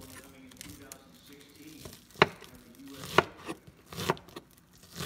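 Chef's knife slicing green onions on a cutting board: sharp, uneven chops of the blade hitting the board, starting about two seconds in.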